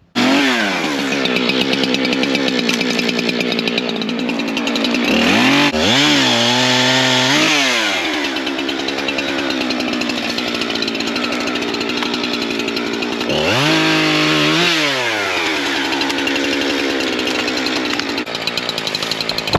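Two-stroke gas chainsaw running at high revs, its engine speed dipping and climbing back twice.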